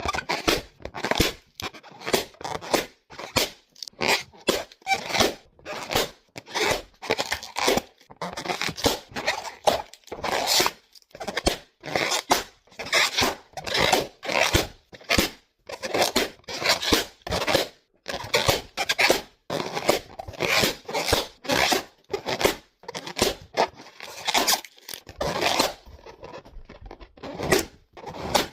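Paper being ripped over and over in short, quick tears, about two a second, with brief gaps between them.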